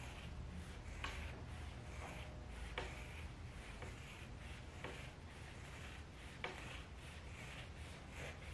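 Scissors cutting through a sheet of fiberglass exhaust-silencer packing: soft crunching and rustling of the fibres as the blades close, with a few light clicks of the blades at uneven intervals.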